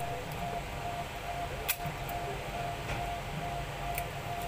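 Smartphone parts being handled and pried apart during disassembly: two sharp clicks, one under two seconds in and one near the end, over a steady low hum and a faint tone pulsing about twice a second.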